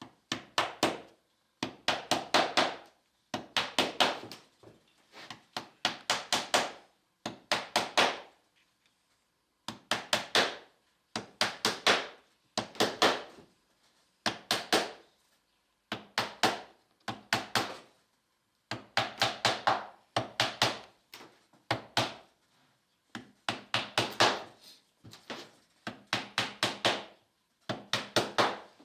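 Small hammer driving tiny nails into a wooden wing rib held in a jig: runs of several quick, light taps, about one run every two seconds, with short pauses between.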